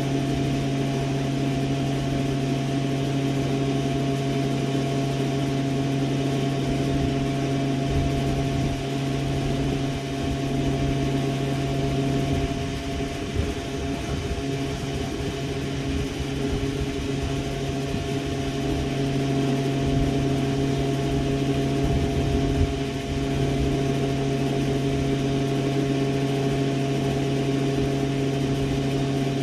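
A machine running steadily: a constant hum with several held low tones that does not change.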